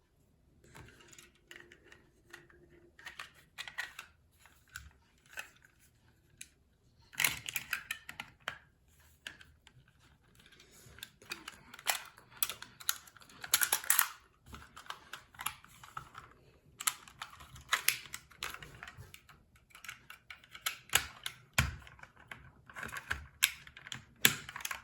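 Plastic clicks, snaps and rattles of a spring airsoft pistol, a Walther P99, being handled and its parts fitted together, in irregular bursts.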